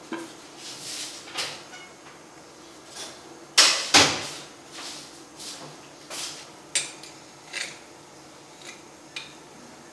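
Kitchen clatter: scattered sharp knocks and clacks, about one a second, with two loud ones close together a little before the middle.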